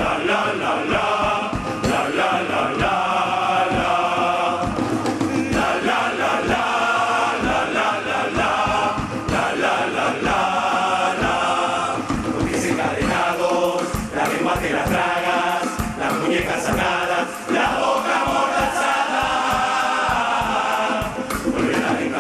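Carnival murga performing: a large group in unison chant over drums and cymbals. The drumbeat comes through more plainly from about halfway through.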